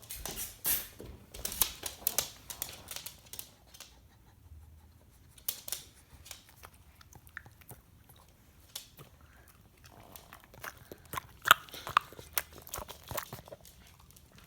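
An 11-year-old pug chewing, with runs of crisp crunching clicks in two main bouts and a quieter pause between them.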